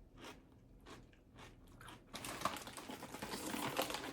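A person chewing and crunching crunchy food close to the microphone: scattered soft chews at first, then from about two seconds in, louder, denser crunching.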